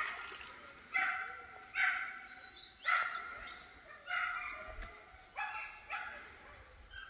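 A dog barking repeatedly, about once a second, the barks growing weaker near the end.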